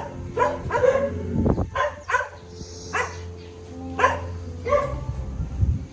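A dog barking repeatedly, one short bark about every half second to a second, over a low steady hum.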